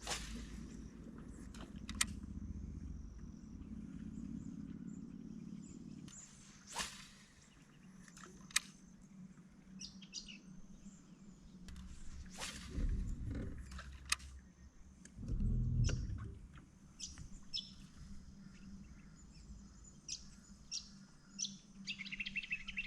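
Birds chirping and calling in short scattered notes over a low rumble, with a couple of dull low thumps partway through.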